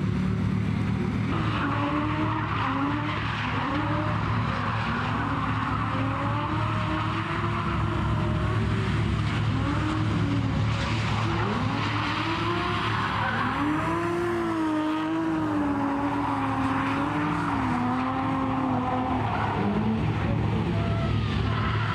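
Two Nissan 350Z drift cars sliding in tandem: engines revving up and down as the throttle is worked, over a steady hiss of tyres skidding and squealing.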